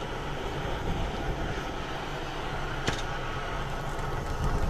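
Gusty wind buffeting the microphone: a steady low rumble, with one sharp click about three seconds in.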